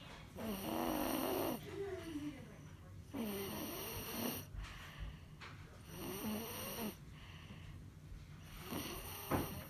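A sleeper snoring: four long, rattling snores about every two and a half seconds, each with a wavering pitch. The last one is shorter and has a sharp peak near the end of the stretch.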